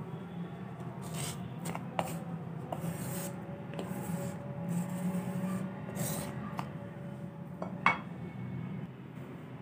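Wooden pestle scraping and knocking in a heavy stone mortar as cooked minced beef and lentils are pounded into kabab mix: irregular rubbing strokes, with a sharp knock about two seconds in and another near the end.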